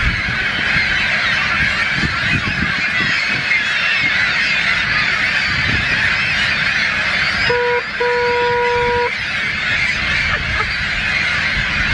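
A large nesting colony of seagulls calling all at once, a dense, unbroken din of overlapping cries. About two-thirds of the way in, a steady held tone cuts through twice: a short blip, then about a second long.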